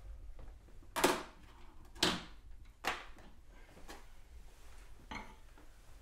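Three sharp knocks or thuds about a second apart, then a couple of fainter ones: a person handling things and moving about a small room.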